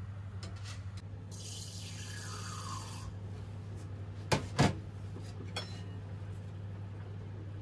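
Kitchen stove-top sounds: a steady low hum throughout, a hissing rush of water for about two seconds, then two sharp metal clinks a little after four seconds in as the lid of the pot of boiling azuki beans is lifted, and a lighter clink a second later.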